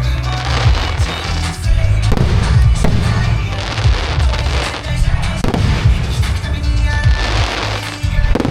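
Fireworks going off in quick succession, with deep booms and sharp bangs throughout, over music playing through loudspeakers for the show.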